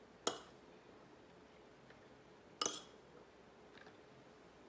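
Metal spoon clinking against a canning funnel on a glass quart jar as diced celery is spooned in: two short, sharp clinks about two seconds apart, the second ringing briefly.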